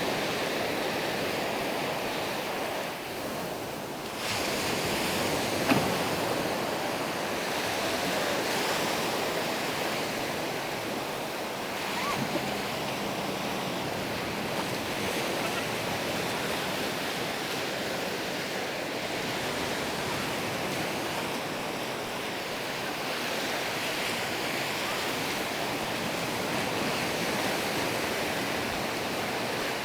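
Sea waves washing onto a sandy beach: a steady, continuous surf wash, dipping briefly a few seconds in.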